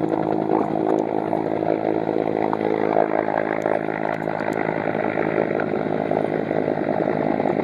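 An engine running steadily with an even, unbroken drone.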